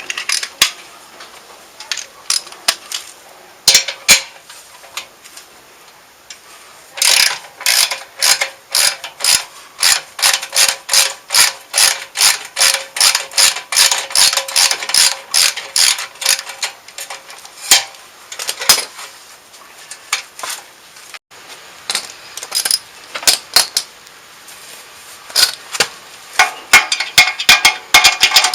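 Socket ratchet wrench clicking in quick back-and-forth strokes, about two or three a second, while muffler mounting bolts are undone. The clicking pauses briefly past the middle, then comes back in shorter, scattered runs.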